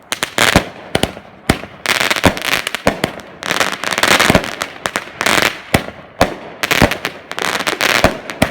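Alien Fireworks Train Wreck, a 16-shot 200-gram consumer cake, firing shot after shot: sharp thumps and reports every half second to a second, with stretches of dense crackle between them.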